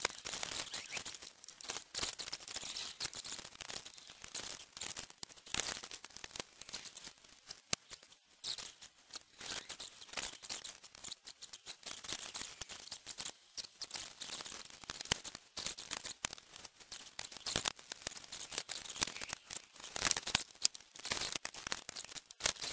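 Dense, irregular clicks, scrapes and rustles of hands handling an Acer Aspire One laptop's plastic casing and screen panel as it is worked on and put back together.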